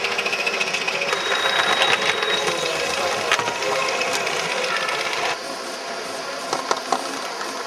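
Gauge 1 live-steam model locomotive running on the track: a steady, rapid chuffing and clatter, dropping in level about five seconds in.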